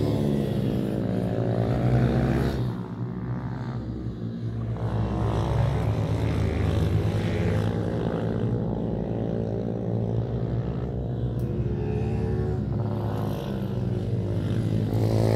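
YCF Start 88 cc pit bike engine revving up and dropping back as it laps, its pitch rising and falling in long swoops every few seconds.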